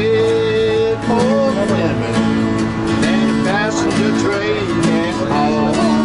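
Country music with acoustic guitar: steady held chords under a bending melody line.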